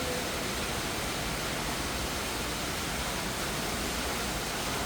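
Steady rushing of water from a decorative waterfall.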